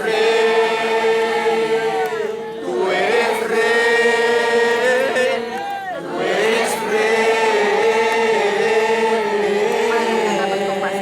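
A crowd of voices singing together in unison: three long phrases of held notes with short breaks between them.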